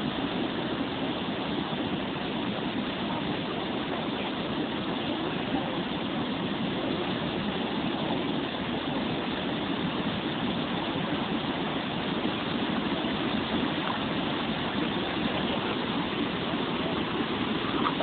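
River in flood after heavy rain: muddy floodwater rushing and churning across a submerged road crossing, a steady unbroken roar of water.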